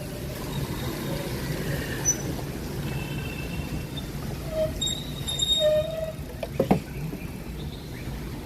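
Steady low rumble of city street traffic, with a few faint high tones about halfway through and a single sharp tick near the end.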